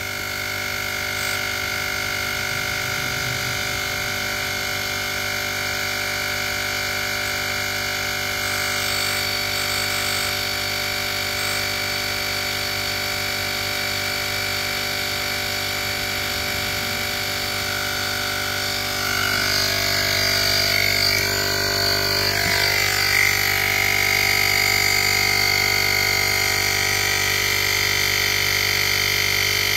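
Cordless digital air compressor (model JM-8817) running steadily as its pump fills a car tyre. It is set to shut off automatically at 40 PSI and has not reached it yet. It grows a little louder about two-thirds of the way through.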